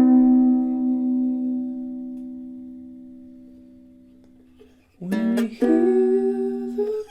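Soprano ukulele with a 3000-year-old Sitka spruce top and pernambuco back and sides, played improvised: a chord rings and slowly fades over about five seconds, then two new chords are strummed in quick succession, with a note bending slightly upward near the end.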